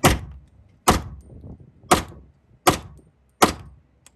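Glock pistol firing five shots about a second apart, each a sharp crack with a short echo in an indoor range.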